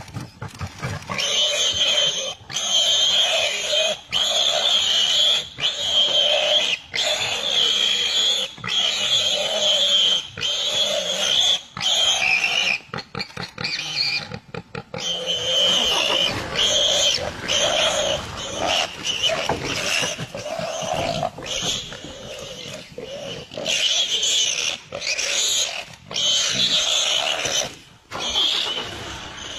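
Wild pig squealing in distress as it is seized by a leopard: loud, harsh squeals, one after another about once a second, rougher and more ragged in the second half.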